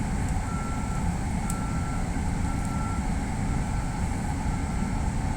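Steady low hum of a stopped electric commuter train, with a short high electronic beep repeating about once a second.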